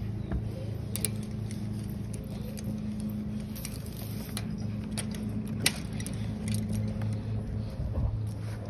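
Sharp metallic clinks and rattles of a chain-link fence being handled, a few times, over a steady low mechanical hum.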